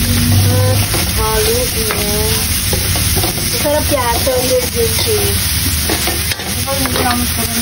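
Metal spatula stirring and scraping ground meat, sliced hotdogs and carrot around an aluminium wok over a steady frying sizzle, with short squeaky scrapes every second or so.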